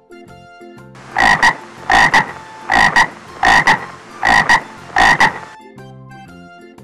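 A frog croaking six times in an even series, each croak a quick double pulse, starting about a second in and stopping shortly before the end, over light background music.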